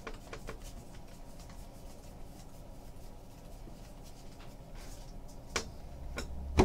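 Baseball trading cards being handled and flipped through by hand: quiet card slides and light clicks, with a couple of sharper taps near the end.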